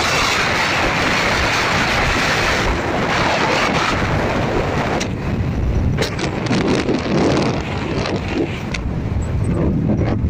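Wind rushing over the microphone together with the road noise of a moving vehicle. From about halfway through it turns into gusty buffeting.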